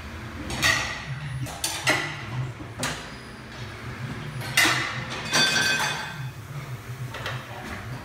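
Tire-changing work: metal clanks of wheels and tools and several short hissing bursts, over a steady low hum.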